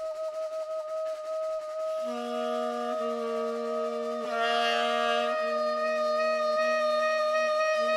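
Long held notes in a free improvisation with tenor saxophone. One high note is sustained throughout. About two seconds in a lower note joins it, sounded again roughly once a second.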